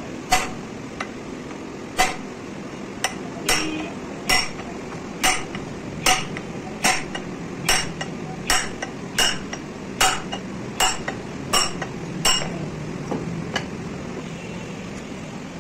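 Hammer blows on a steel drift rod set in the kingpin bore of a Hino truck's front steering knuckle, driving the spindle bush: about fifteen sharp metallic strikes, a little under one a second. The strikes stop about two seconds before the end.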